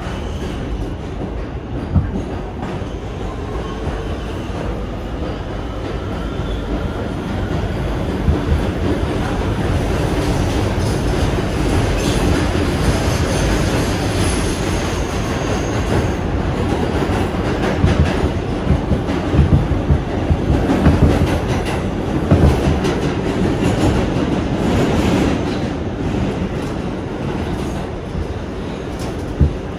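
An NYC Subway Kawasaki R211T car in motion, heard from inside: a steady rumble of steel wheels on rail, with rail-joint clicks and knocks that come thicker and louder in the second half. A faint whine rises in the first few seconds.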